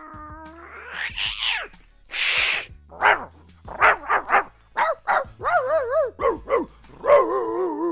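A man making sound effects with his voice, dog-like ones among them. It opens with a held tone, then a sweep that rises and falls and a hissing burst. A run of short bark-like yelps follows, and it ends in wavering, warbling cries.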